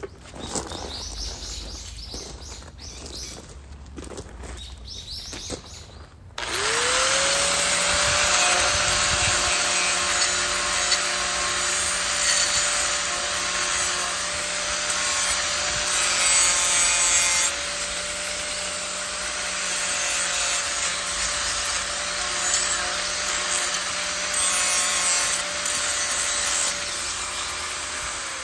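A power grass trimmer starts suddenly about six seconds in, speeds up to a steady whine and runs with a shifting rasping noise as it cuts through grass, then begins to wind down at the end. The first few seconds before it are quieter, with faint scattered outdoor sounds.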